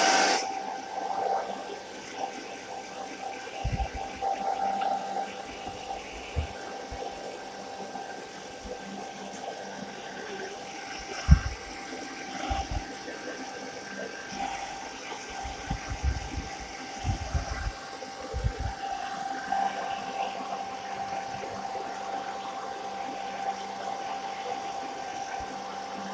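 Hair dryer running steadily on a guinea pig's fur, a steady whine over a rush of air, with a few low thuds scattered through, the loudest about eleven seconds in.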